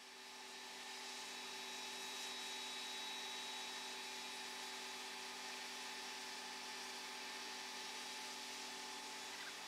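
D3 class steam locomotive 639 standing in steam: a steady hiss of escaping steam with a steady whirring hum of several tones beneath it, fading in over the first second.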